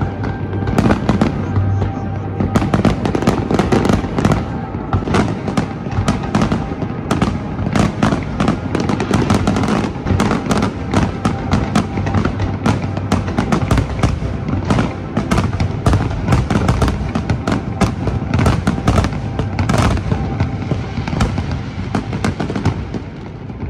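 Large fireworks display: a continuous, dense barrage of shells bursting, with rapid bangs and crackles, and music playing underneath.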